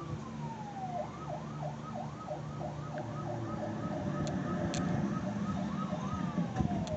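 Police car siren: a long falling wail for about a second, then a fast yelp rising and falling about three times a second, easing back into a slow falling wail near the end.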